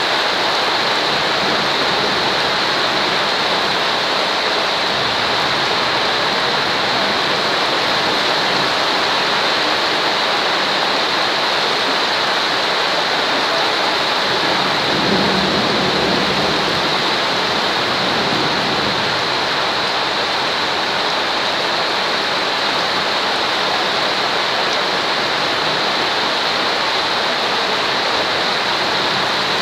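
Steady rain noise played as a white-noise track: an even, unbroken hiss.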